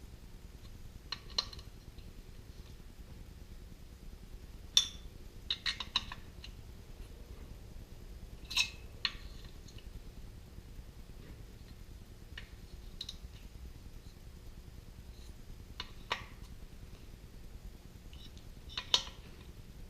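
Scattered metal clinks and clicks of hand tools, a socket and wrench, being handled on the cylinder head bolts of a Kohler K-series engine, with the loudest knocks about five seconds in, near the middle and near the end.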